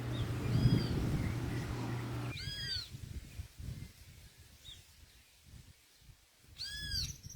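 Two short, high animal calls about four seconds apart, each rising and falling in pitch, with a fainter one just before. A steady low hum under the start stops suddenly after about two seconds.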